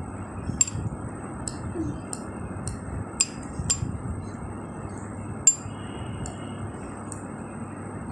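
Steel fork clinking and scraping against a bowl while mashing boiled eggs: irregular sharp clicks, about ten, the loudest about halfway through, over steady background noise.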